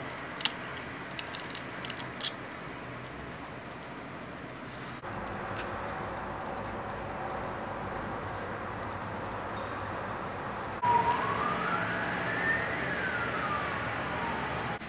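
Eggshell cracking and clicking in a few sharp taps as eggs are separated over a glass bowl, then steady room hiss. In the last few seconds a single slow wail rises and falls, like a distant siren.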